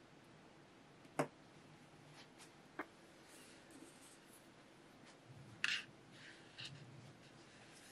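Quiet handling on a wooden table: two small knocks as lit tealight candles are set down, then a louder knock about two-thirds of the way through, followed by soft rustling, as a leather-bound journal is laid down.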